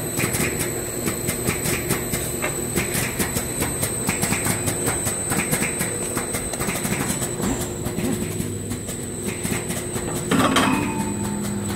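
Wide belt sander running steadily: a constant mechanical hum with a high whine and a fast, even clatter. Near the end there is a louder thump as a lacquered board is fed onto the feed conveyor, and the hum changes pitch after it.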